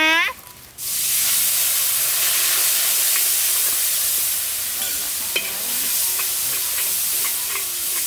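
Liquid hitting a hot steel wok over a wood fire, setting off a sudden loud sizzle about a second in that holds steady, with a few small ticks from the ladle or spatters.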